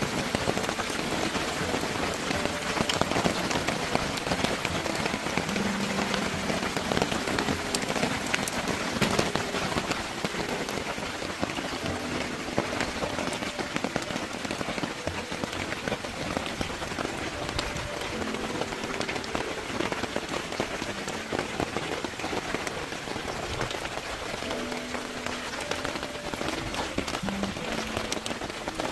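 Rain falling on a camping tarp overhead: a steady dense hiss of rain with many sharp individual drop hits.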